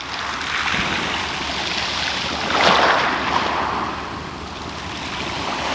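Small waves washing onto a shingle beach, with a steady rush of surf that swells about halfway through as a wave breaks and runs up over the pebbles.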